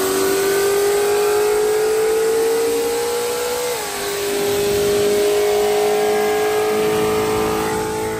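Car engine accelerating hard, its pitch climbing and then dropping suddenly about four seconds in at a gear change, then pulling steadily in the next gear and starting to fade near the end.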